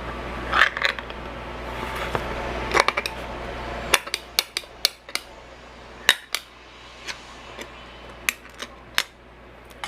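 Kitchen dishes and utensils clinking and knocking as food is handled: a run of sharp separate clicks and taps. A steady background noise cuts out about four seconds in.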